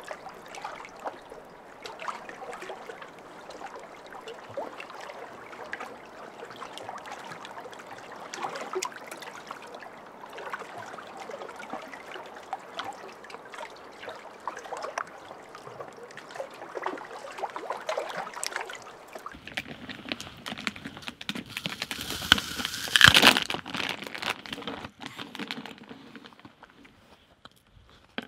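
Water lapping and trickling, a steady patter of many small splashes and drips. The sound changes about nineteen seconds in, with a louder burst around twenty-three seconds, then dies away just before the end.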